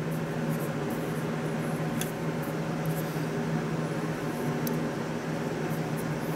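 Steady mechanical hum of shop machinery, a constant low drone with a few faint clicks.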